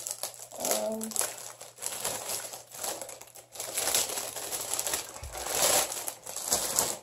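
Clear plastic bags crinkling and rustling irregularly as they are handled and pulled open, loudest near the end.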